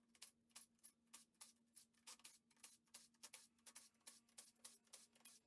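Faint, quick clicking of a ratchet working fasteners on a battery pack, about four clicks a second and slightly uneven, over a faint steady hum.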